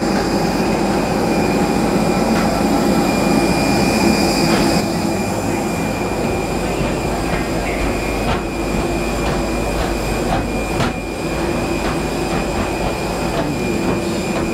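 Steady whine and rumble of jet aircraft and ground equipment on an airport apron, with wind buffeting the microphone. In the second half, footsteps clank on the metal boarding stairs about once a second.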